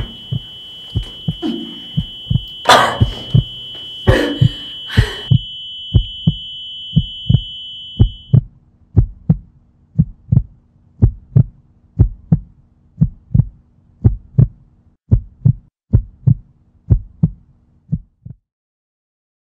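Heartbeat sound effect: low thumps in pairs repeating steadily, a little over one beat a second. A steady high ringing tone sounds over the beats for about the first eight seconds. The beats stop shortly before the end.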